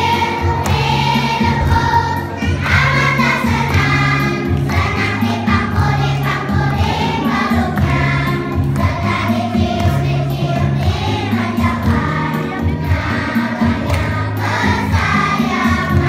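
A group of young children singing together over a recorded backing track with a repeating bass line.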